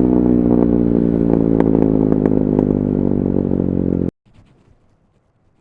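KTM 390 Duke's single-cylinder engine running at a steady speed through an Akrapovic slip-on exhaust with the catalytic converter removed, with scattered sharp crackles. The sound cuts off abruptly about four seconds in, leaving only a faint low rumble.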